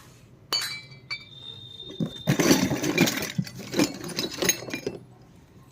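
Small miniature toy kitchen pieces clinking: one sharp clink with a short ring about half a second in, then about three seconds of quick rattling and clattering as the pieces knock together.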